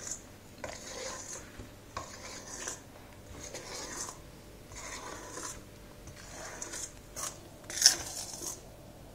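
Spatula scraping around a stainless steel bowl as melted chocolate and whipped egg whites are mixed together, in repeated irregular strokes about one to two a second. A sharper clink of the utensil on the bowl comes near the end.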